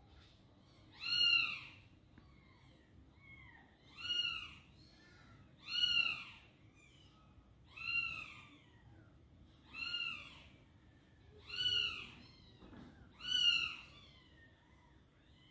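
Newborn kitten mewing: seven shrill cries roughly every two seconds, each rising then falling in pitch, with fainter calls in between. The calls of a young kitten lying apart from its mother.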